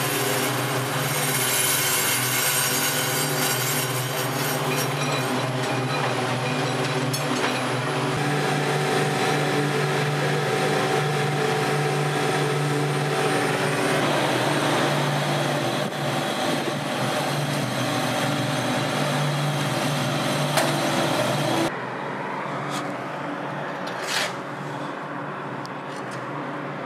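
Wirtgen slipform concrete paver running: a steady machine hum from its engine and hydraulics with a constant drone and clatter. Near the end it drops suddenly to a quieter, more distant machine sound.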